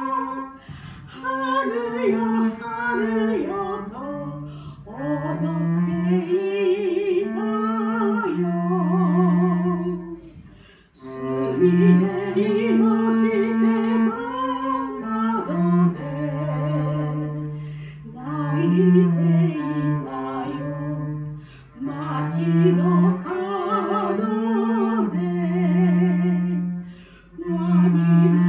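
An 89-year-old woman singing a Japanese song with a wavering vibrato, accompanied by a cello playing long, held low notes. The singing breaks briefly about ten seconds in, then carries on.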